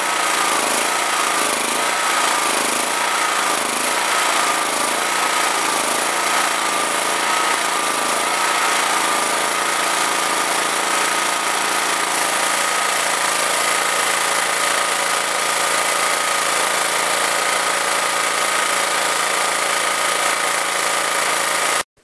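Honda EX1000 generator's four-stroke engine running with a regular surge for about the first ten seconds, its pitch wavering up and down. It then settles into an even, steady run as the carburetor screw is turned out and the engine clears out. The sound cuts off abruptly right at the end.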